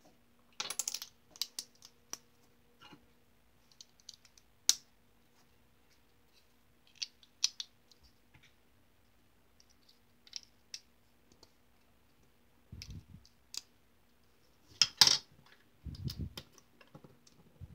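LEGO pieces clicking and clattering as small plastic bricks and plates are handled, snapped together and set down on a wooden table: irregular sharp clicks, with a couple of dull knocks in the second half.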